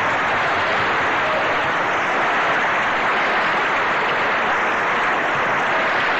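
Large hall audience applauding: a dense, steady round of clapping at the close of a rousing line in a political speech.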